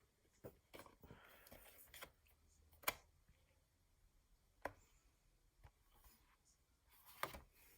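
Faint handling sounds: a few scattered sharp clicks and taps, the loudest about three seconds in, with a soft rustle early on. These are typical of a phone and its packaging or accessories being handled.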